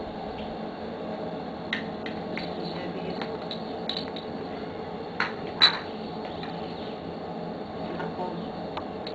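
A metal spoon clinking and scraping against a small glass spice jar: a few light taps, then two sharper clinks about five seconds in, the second the loudest.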